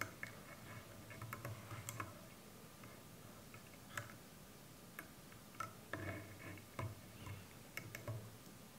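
Faint, irregular small clicks and ticks of a wire whipping tool (whip finisher) and thread being worked around a hook held in a fly-tying vise, as the thread is whip-finished to tie off a fly.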